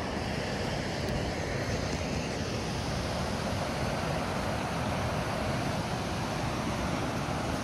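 Steady rush of a rocky mountain stream, white water tumbling over boulders.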